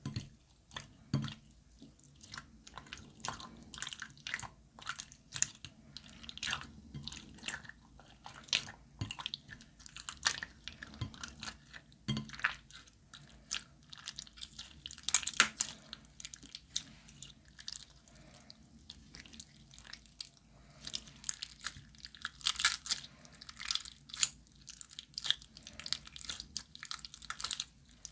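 Glossy slime being squeezed, stretched and kneaded by hand, giving irregular sticky clicks and small wet pops, with louder crackly bursts about halfway through and again later on.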